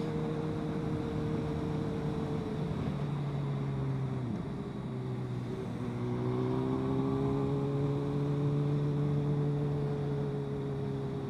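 Motorcycle engine running steadily at freeway speed under a wash of wind noise. Its note dips for a moment about four seconds in, then picks up and holds steady again.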